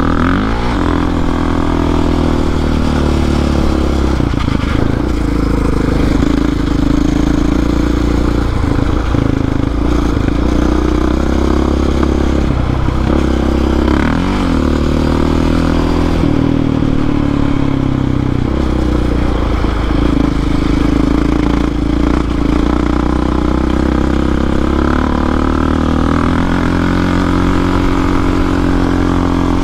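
Sport ATV engine running hard on a trail ride, its pitch dropping and climbing again a few times as the throttle is eased off and opened back up.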